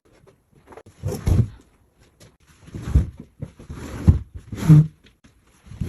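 Sheet vinyl floor covering being dragged and rolled up off a wet floor: a handful of scraping, rustling pulls about a second apart.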